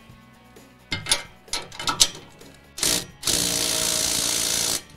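Cordless Craftsman brushless impact running in short bursts, tightening the exhaust collector flange bolts: a few metal clicks, then a brief burst and a steady burst of about a second and a half.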